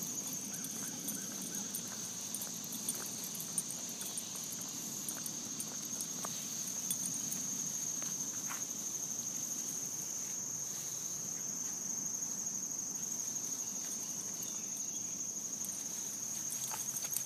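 A steady chorus of insects trilling on one high pitch without a break, with faint scattered ticks.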